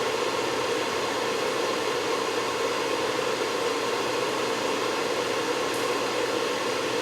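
Steady fan-like whooshing noise with a faint underlying hum, from the cooling fans of electronic test equipment running unchanged.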